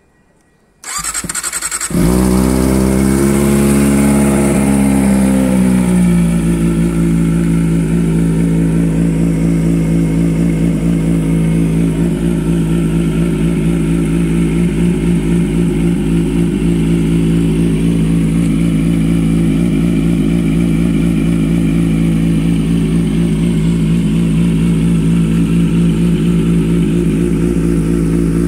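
Kawasaki ZX-25R's 250 cc inline-four started cold through a DX Generation GPR aftermarket exhaust: the starter turns briefly, the engine catches about two seconds in and runs at a raised, uneven idle, then about six seconds in it drops to a steady warm-up idle.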